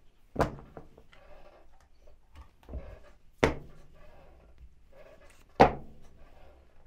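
Three loud knocks of hard objects being handled and set down, about three and two seconds apart, with a few softer knocks and rustling between.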